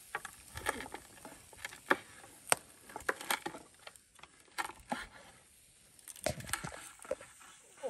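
Cleaver chopping meat on a wooden cutting board: irregular sharp knocks, the loudest about two and a half seconds in.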